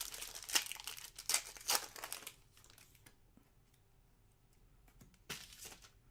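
Foil trading-card pack wrapper crinkling and tearing as a pack is ripped open, in a dense stretch over the first two seconds and again briefly near the end.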